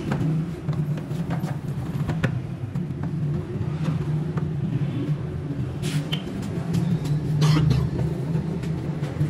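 A cloth rubbing over a motorcycle's painted panels in a few brief scuffs, over a steady low hum that runs throughout and is the loudest sound.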